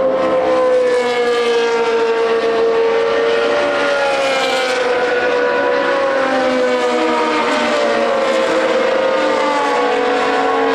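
Several racing car engines running at high revs together, their pitches wavering slowly up and down rather than sweeping past.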